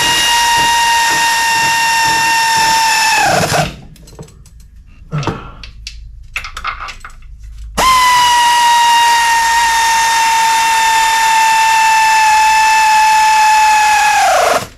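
Handheld power tool driving the transmission's bell housing bolts through a long extension and swivel. It runs as a steady high whine that sags slightly in pitch as the bolt tightens, then winds down. This happens twice, the second run long, with light clicks and clanks of the socket between them.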